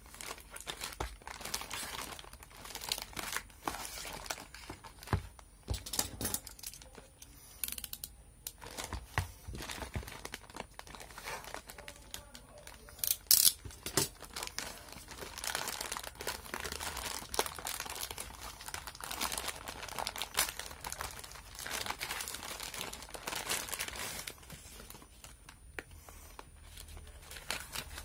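A white plastic mailer bag crinkling and rustling as it is handled, slit open and emptied, with a short, sharp tearing sound about halfway through, the loudest moment.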